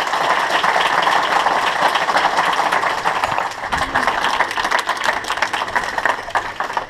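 Audience applauding, with dense, even clapping that fades near the end. A few low bumps a little past the middle, as the camera is handled.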